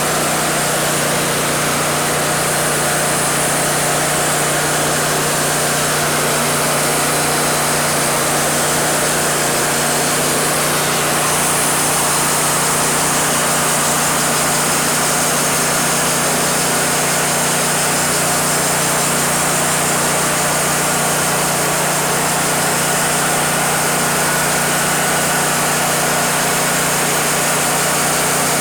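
Wood-Mizer LT40 band sawmill running steadily, its engine holding a constant pitch under a dense hiss of machine and blade noise.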